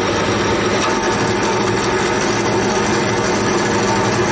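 Drill press running steadily, a small bit drilling into a metal disc clamped in a machine vise.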